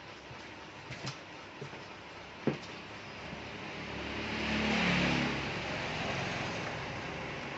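A few light clicks, then a passing motor vehicle: its engine noise swells to a peak about five seconds in and fades.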